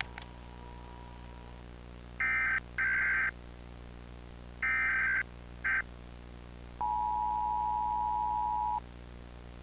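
Emergency Alert System signal tones: four short bursts of digital data tones in two pairs, then the steady two-tone attention signal held for about two seconds.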